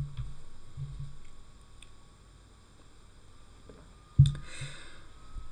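Pause in narration: room tone with a low hum that fades after about a second, then a sudden short knock about four seconds in, followed by a brief hiss.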